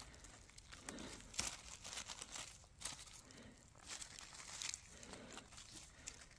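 Faint, scattered rustling and light crackling of forest-floor leaf litter and twigs, with a few small snaps.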